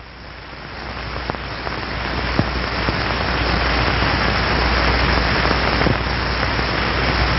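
Wind machine (an electric fan) starting up and blowing on a drag balance: a rush of air with a low hum underneath, building over the first three seconds or so and then holding steady.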